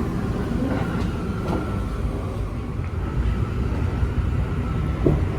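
Keisei Skyliner express train heard from inside a car while running: a steady low rumble of wheels on track with a faint high whine. A short knock comes near the end.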